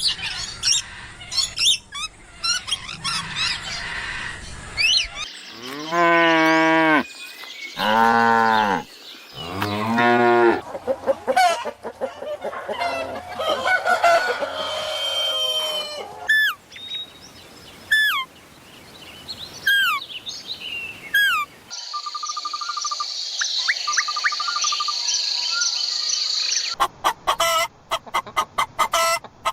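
A series of farm animal calls: three long cow moos in a row, then short falling bird chirps and other fowl calls, with rapid sharp calls near the end.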